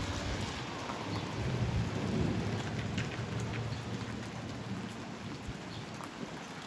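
Strong thunderstorm wind gusting against the microphone as a steady low rumble, with rain falling and a few faint drop ticks.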